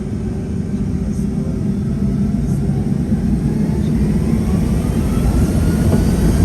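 Boeing 757-200's jet engines spooling up for takeoff, heard inside the cabin: a low rumble under a whine that rises steadily in pitch while the sound grows louder.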